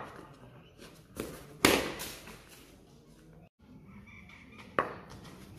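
Three sharp knocks: a light one about a second in, the loudest shortly after, and another near the end.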